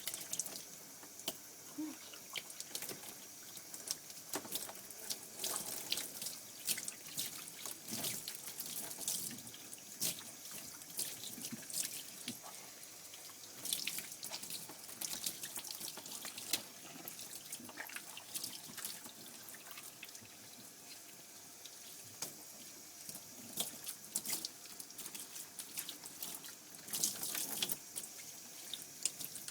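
Water running and splashing onto a dog's wet coat in a bath, rinsing out shampoo, with irregular spatters and drips.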